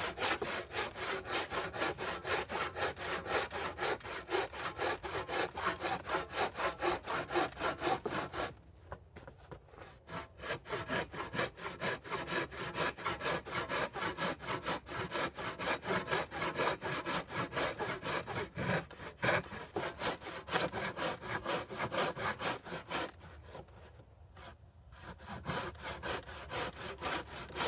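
Hand saw cutting through a wooden board in steady back-and-forth strokes, rough-sawing about an eighth of an inch outside the line so the edge can be planed square. The sawing pauses twice, briefly about a third of the way in and again near the end.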